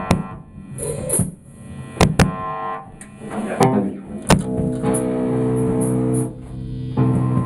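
A punk band's amplified electric guitar and drums starting up: several sharp, separate hits, then from about five seconds in a loud, held, droning chord.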